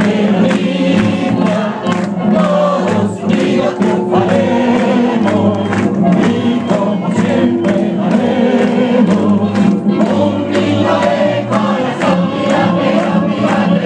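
Music with many voices singing together, and a crowd clapping along in a steady beat.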